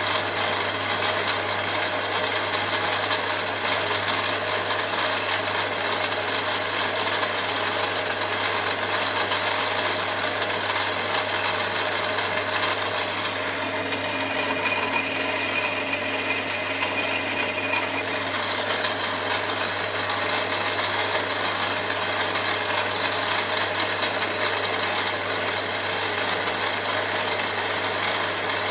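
Milling machine running steadily. About halfway through, a drill bit cuts a bolt hole into a solid aluminium block for about five seconds, adding a high whine over the machine's run.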